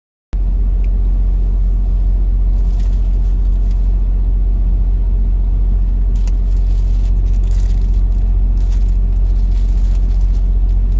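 Steady loud low rumble, with a few faint brief rustles over it.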